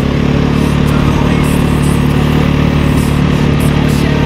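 2015 KTM 450 EXC's single-cylinder four-stroke engine running at a steady, even pace while the bike cruises, its pitch holding nearly constant.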